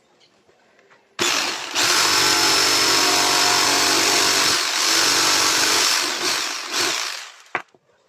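Electric jigsaw running and cutting through wood. It starts about a second in, runs steadily for about six seconds with a couple of brief dips, then winds down, followed by a light knock.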